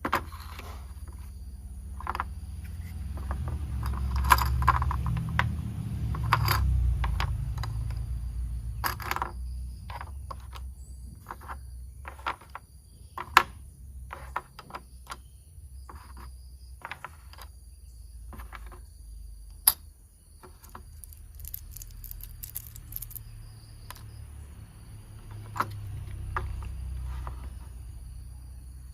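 Plastic toy train parts being handled and fitted together: irregular clicks and clacks, some sharper knocks, over low rumbling handling noise.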